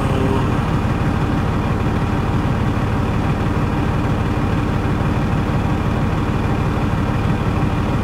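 Semi-truck diesel engine idling steadily: a low, even rumble heard from inside the truck's cab.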